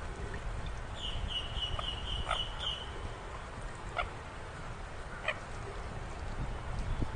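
Burung mandar, a rail, calling: a quick run of about six short high notes about a second in, then a few single short calls, over a steady low rumble.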